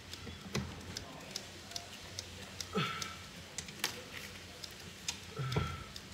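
Scattered light clicks and taps of hands and tools working on the plastic and metal parts under a Toshiba washing machine. Two short vocal sounds stand out, about three seconds apart.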